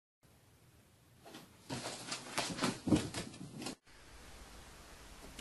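A quick run of light knocks and taps, loudest from about two to nearly four seconds in, as a kitten scrambles and pounces on a wooden floor. It cuts off abruptly, and faint room noise follows.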